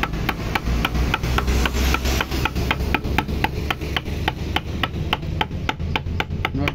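A wood-carving chisel driven into a wooden board by light hammer blows, a steady run of sharp taps about four a second, chipping out the wood.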